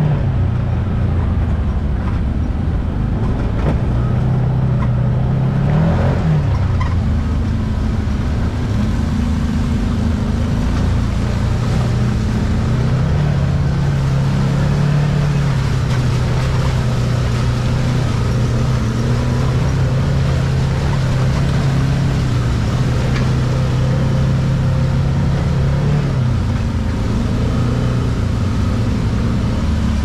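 Can-Am Maverick X3 side-by-side's three-cylinder engine running under way on a rough trail, mostly at a steady pitch. The engine note dips and comes back about six seconds in, climbs a little around thirteen seconds and drops again near the end, over a constant low rumble.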